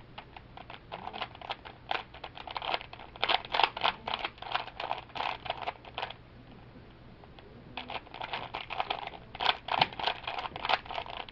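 A 3x3 picture Rubik's cube being twisted by hand, its plastic layers clicking in quick runs of turns, with a pause of about two seconds near the middle.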